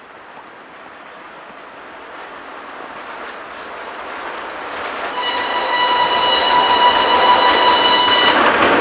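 A ChS8 electric locomotive hauling a passenger train approaches, its running noise on the rails growing steadily louder. About five seconds in, it sounds a long, high-pitched horn for about three seconds, which cuts off sharply.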